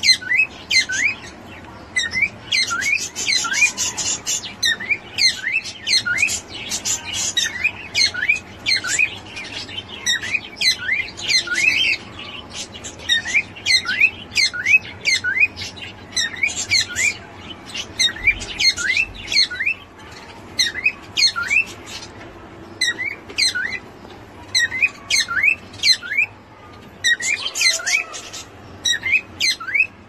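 Cockatiel chirping over and over in short calls that dip and rise in pitch, about two or three a second, with brief pauses between runs.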